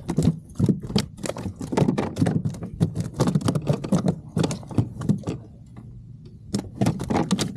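Rapid, irregular clicking and knocking, several hits a second, with a pause of about a second near the end.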